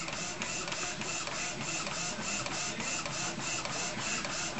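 Epson SX405 inkjet printer printing a photo on its high-quality setting: the print head carriage shuttles back and forth, making a steady, evenly repeating pulsing whir.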